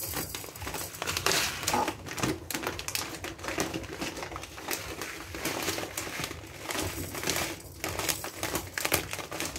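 Dry basmati rice grains pouring from a plastic packet into a plastic cup, a dense patter of small clicks, with the packet crinkling as it is handled.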